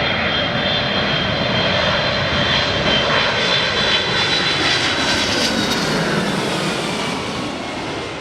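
Arriving airliner's engines passing by: a steady roar with a high whine whose tones glide slowly down in pitch, fading away near the end.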